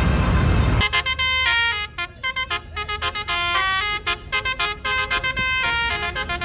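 A low engine and traffic rumble cuts off about a second in. A telolet basuri musical bus horn then plays a quick tune of short notes stepping up and down in pitch.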